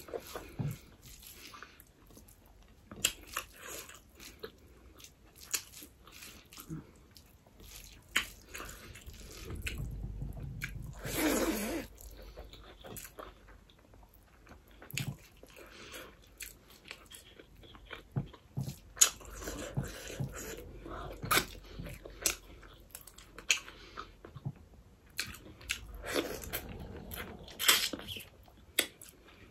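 Close-miked eating: a person chewing and smacking mouthfuls of rice and curry eaten by hand, with many short crunches and wet clicks, and one louder, longer mouth sound about eleven seconds in.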